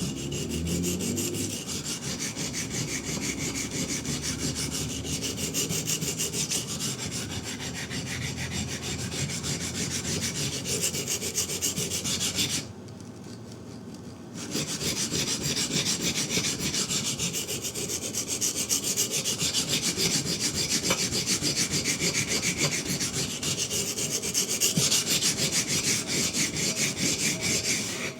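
Steel knife blade being ground on a coarse 120-grit Shapton water stone in rapid back-and-forth strokes, regrinding the main bevel to thin it. The grinding stops for about two seconds a little before the middle, then resumes.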